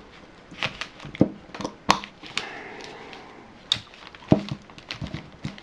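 Mitchell 410 spinning reel handled during reassembly as its spool is clipped on and released: a run of irregular small clicks and knocks, about nine in all.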